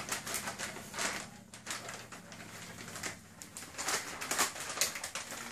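A plastic crisp packet crinkling and rustling in irregular, sharp bursts as a Labrador puppy with its head stuck inside it moves its head about.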